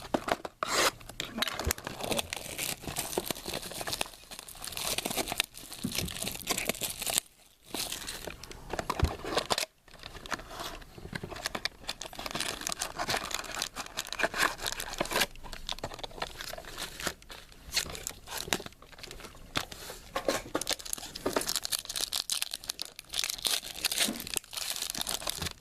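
Wrapping on sealed trading-card boxes and packs crinkling and tearing as they are opened by hand, on and off, with a couple of short pauses.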